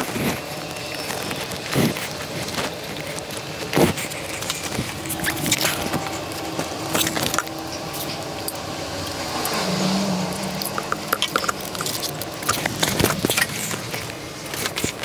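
Handling noises from fitting a new rubber timing belt onto the sprockets of a BMW M20 engine: scattered clicks, taps and knocks of hands, belt and metal parts, over a faint steady hum.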